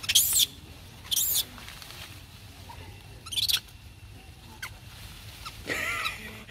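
Baby long-tailed macaques crying: three brief, very high-pitched squeals in the first few seconds, then a longer, lower wailing cry near the end.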